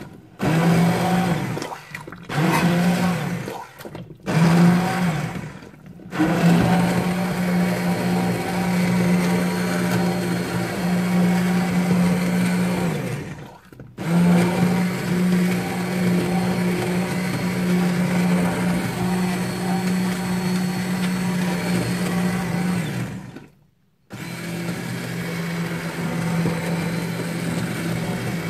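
Hand-held immersion blender running in a pot of cooked zucchini soup, puréeing it. Its motor hums in a few short bursts at first, then in long steady runs that stop briefly twice.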